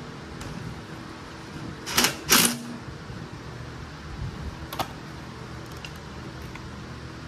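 Electric fan blowing steadily, with two short loud noises a fraction of a second apart about two seconds in and a lighter click near five seconds.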